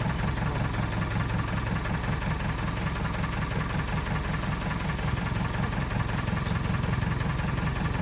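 Vehicle engine idling steadily with an even low hum.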